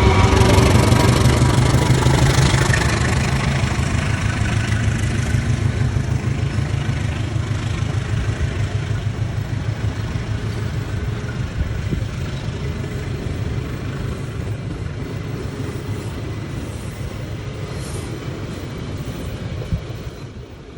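A train passing and moving away, its engine and wheels rumbling loudly and fading gradually.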